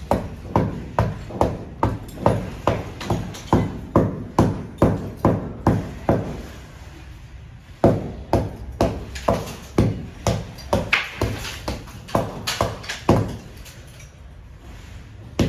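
Hammer striking a chisel into a wall, chipping out a pocket to seat a beam. The blows come about twice a second in two steady runs, with a pause of a second or two in the middle and another near the end.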